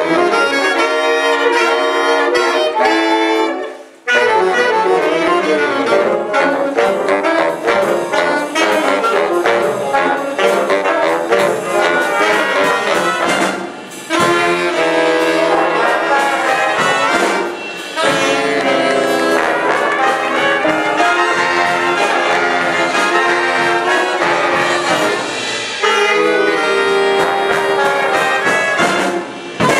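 Jazz big band playing, with the saxophone section playing together against trombones and trumpets. The music breaks off briefly about four seconds in, then the band comes back in.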